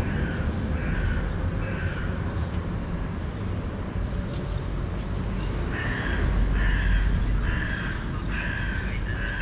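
A crow cawing in a run of short calls under a second apart, three or four near the start and about five more from around six seconds in, over a low rumble of street traffic.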